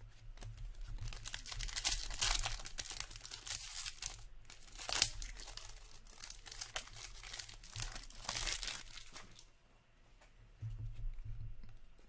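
Hands tearing open a foil hockey-card pack and crinkling the wrapper: several sharp rips over about eight seconds, the loudest about two, five and eight seconds in, then quieter handling.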